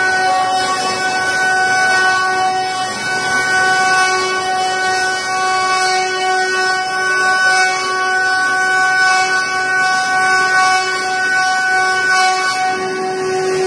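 Multi-spindle 5-axis CNC wood router carving wooden spindles: the router spindles run with a steady high whine over the hiss of cutting wood.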